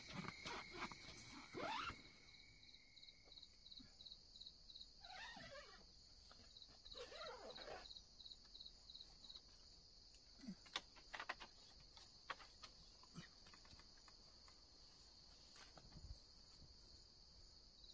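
Faint night insect chorus: a steady high chirring with a regular pulse about three or four times a second, and a few soft rustles and ticks over it.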